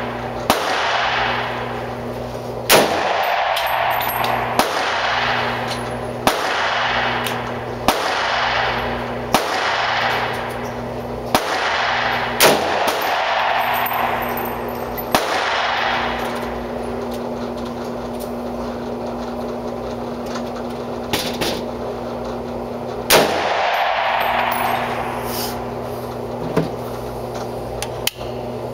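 Springfield Armory M1A semi-automatic rifle firing .308 rounds: a string of about ten shots, one every second and a half to two seconds, then a pause and another shot later on. Each shot rings on in the echo of a concrete-walled indoor range, over a steady hum.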